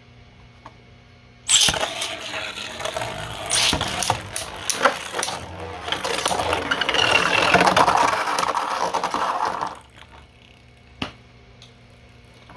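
Two 3D-printed Beyblade spinning tops are launched into a stadium about one and a half seconds in. They spin, scrape and clash with rattling hits for about eight seconds, then go quiet abruptly when both are knocked into the stadium's pockets.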